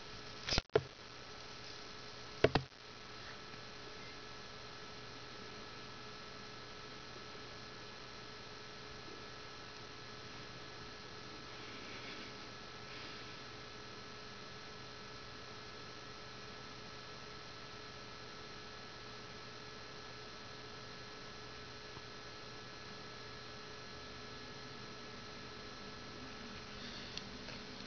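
Steady electrical mains hum with several faint steady tones. Two or three sharp knocks come in the first three seconds.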